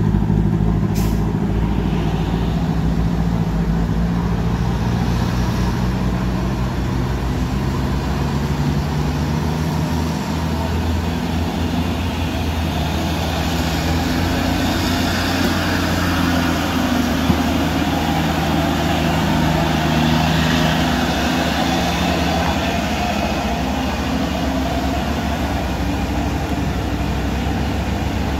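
Heavy diesel trucks labouring up a steep, wet hairpin climb: a steady low engine drone, with a rushing hiss that swells about halfway through.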